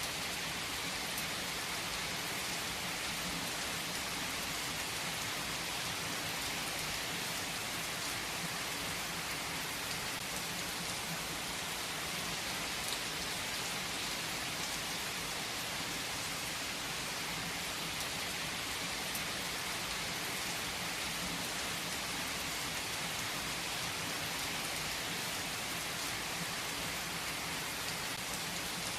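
Steady rain falling, an even hiss of many drops with a few sharper drop ticks scattered through it.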